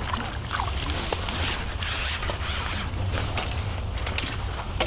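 A carbon fishing pole being slid back through the hands, a rustling, scraping sound with small clicks, strongest from about a second and a half to three seconds in, over a steady low rumble.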